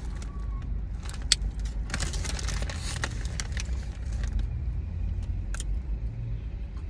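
A foil snack bag crinkling as a hand digs into it, with crunchy hot cheese fries being chewed, over a steady low rumble from the car.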